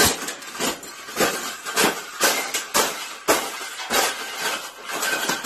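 Irregular clattering knocks and clinks of hard objects, about two to three a second.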